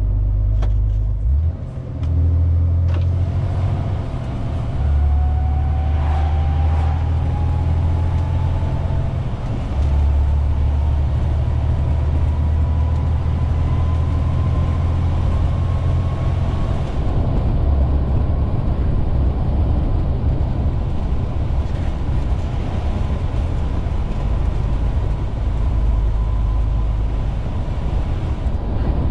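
MAN TGX 470 truck's diesel engine droning steadily as heard from inside the cab while driving, with a faint whine that climbs slowly in pitch through the first half and then holds steady.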